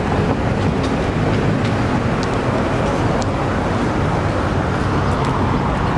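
Los Angeles Metro Blue Line light-rail train passing at a street crossing: a steady rumble with a few sharp clicks from the wheels on the rails.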